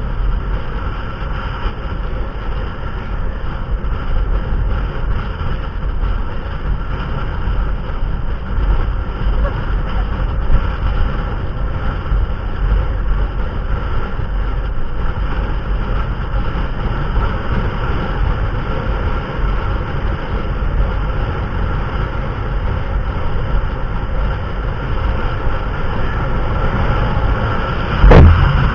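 Steady low rumble of a vehicle running, with a sudden thump near the end.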